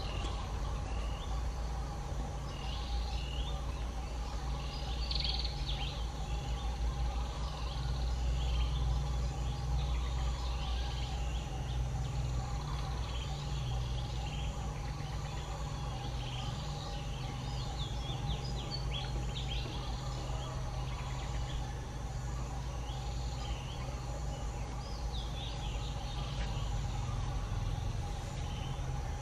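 Outdoor background: a steady low rumble with birds chirping here and there.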